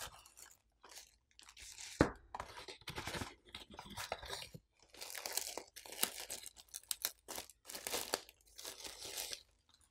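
A cardboard accessory box being handled and a clear plastic packaging bag crinkling as it is pulled open, in irregular rustling bursts. A sharp tap about two seconds in.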